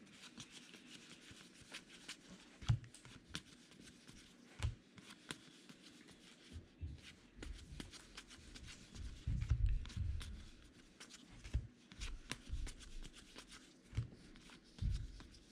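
2020 Topps Gypsy Queen baseball trading cards being handled and flipped through by hand, with light sliding and clicking of card stock. A few soft low knocks come in between, the loudest about nine to ten seconds in.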